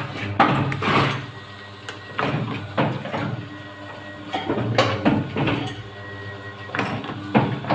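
Paper plate machine running: a steady motor hum under repeated knocks and clatter of the mechanism at uneven intervals.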